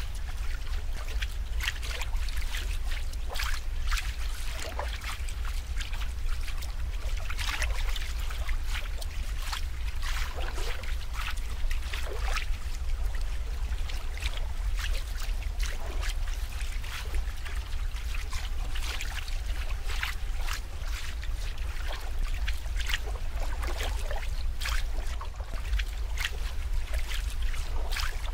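Water trickling and splashing in many small, irregular splashes, over a steady low hum.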